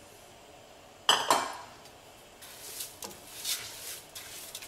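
A sharp clank on a stainless steel stockpot about a second in, then a plastic spoon stirring dry lentils into the water and vegetables with a few irregular scraping strokes against the pot.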